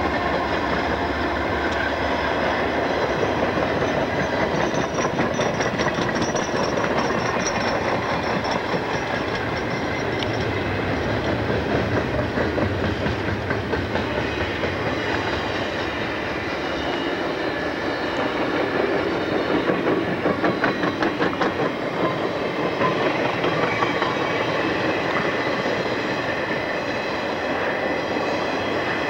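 Conrail double-stack container freight train rolling past: a steady rumble of steel wheels on rail, with the rhythmic clickety-clack of wheels over rail joints coming and going.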